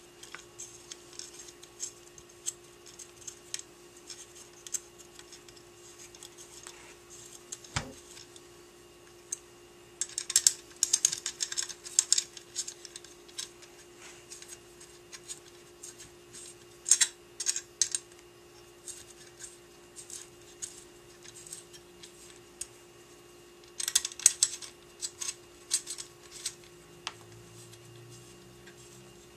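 Small metallic clicks and ticks of screws and an Allen wrench being handled and started into a two-piece quad rail handguard, coming in irregular clusters with scattered single ticks between. A steady low hum runs underneath.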